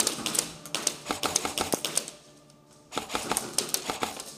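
Airsoft gunfire: two strings of rapid, sharp shots. The first lasts about two seconds and the second starts about a second after it ends.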